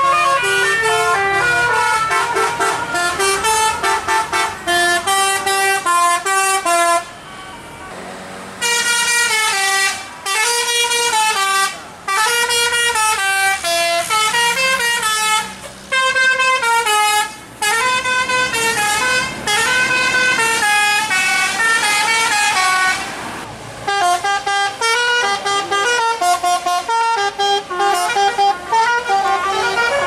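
Bus telolet basuri multi-tone horns playing quick stepped melodies, one phrase after another with short breaks, the longest about seven seconds in.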